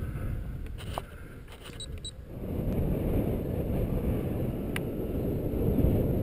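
Wind buffeting an outdoor camera microphone: a low rumble that eases briefly and then comes back stronger about two seconds in, with a few faint clicks.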